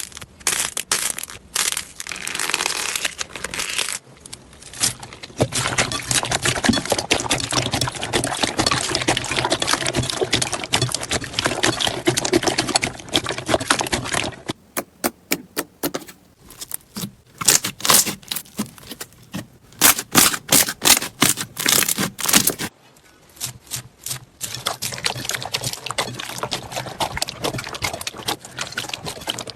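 Slime being squeezed, pressed and poked in a run of close-up clips, making dense crackling and popping: a thick crackle for about the first half, sharper separate pops and clicks for several seconds, then dense crackling again near the end.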